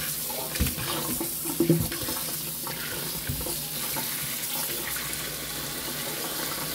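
Kitchen tap running steadily onto mangoes on a plate in a stainless steel sink, with a few light knocks as the fruit is handled under the stream. The water cuts off suddenly at the end.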